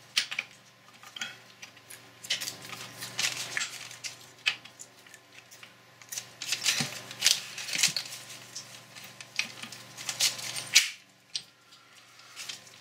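Steel gears and the worm shaft of a Boxford lathe apron clinking and knocking against each other and the cast-iron housing as they are worked into place by hand, in irregular clicks and taps. A low steady hum underneath cuts off near the end.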